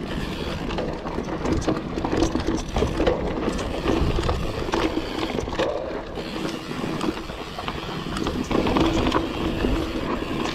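Mountain bike riding fast down a dirt forest singletrack: knobby tyres rolling over dirt and roots, with the bike rattling and knocking over bumps.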